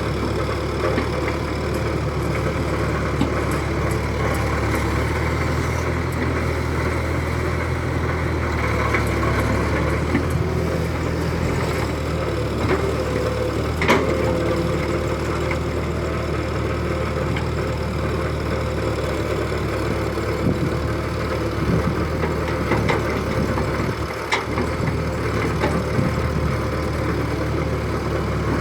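Radio-controlled model excavator working as it loads a model dump truck: a steady, engine-like running hum, with a sharp click about halfway through and another near the end.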